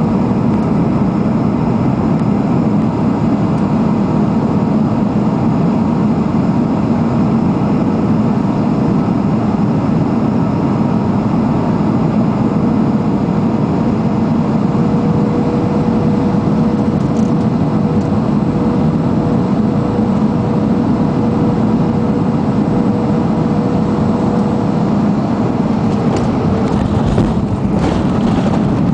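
Cabin noise of a jet airliner on final approach: the steady roar of engines and rushing air, with a steady whine held through the middle. A few knocks and rattles near the end as the plane comes down over the runway.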